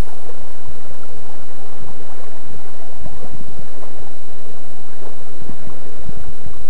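Loud, steady rushing of fast river water, with irregular low buffeting from wind on the camera microphone.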